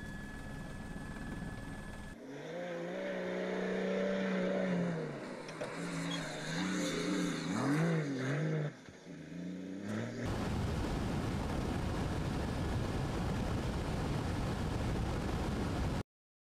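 Rally vehicle's engine revving, its pitch holding, dropping and rising again several times, between stretches of a steady rushing noise; the sound cuts off suddenly near the end.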